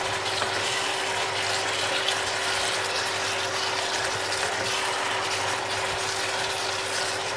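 Shrimp curry sizzling and crackling in a wok as a spatula stirs and scrapes through it, with a steady hum underneath.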